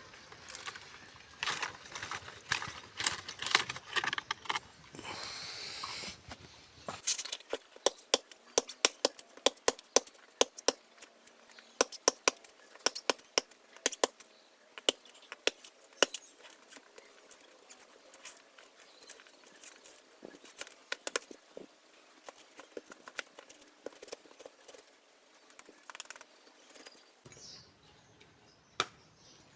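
A run of sharp, irregular clicks and knocks, two or three a second at first and thinning out later, with abrupt changes in the background about seven seconds in and again near the end.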